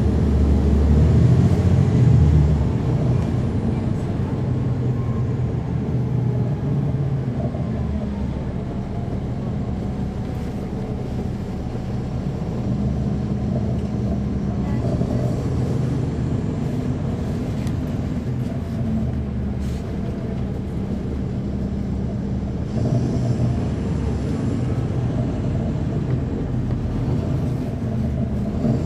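Caterpillar C13 ACERT diesel engine of a NABI 40-SFW transit bus running while the bus is under way, heard from the rear seats inside the bus. It is loudest in the first few seconds, eases a little, then picks up again about twenty-three seconds in.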